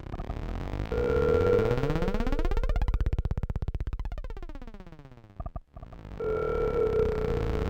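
Synthesized electronic sound effect: a harsh, rapidly pulsing buzz that sweeps in pitch, with a steady held tone over it. It cuts out briefly a little after five seconds, then comes back with the held tone.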